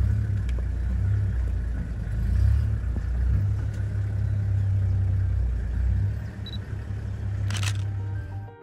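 Low steady rumble of an idling vehicle engine, with a short hiss near the end.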